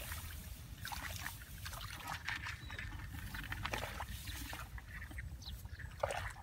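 Footsteps and rice stalks rustling as people walk through a rice paddy, in irregular swishes with a louder brush near the end, over a steady rumble of wind on the microphone.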